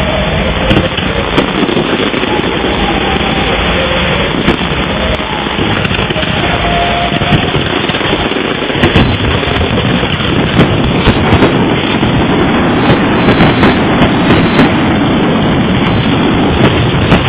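Aerial fireworks display: a loud, dense, continuous barrage of bangs and crackling, with sharp reports coming more often from about halfway through.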